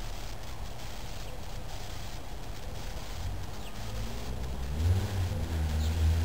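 A motor vehicle's engine off-camera, a low rumble that builds through the second half, rising in pitch as it accelerates and loudest near the end.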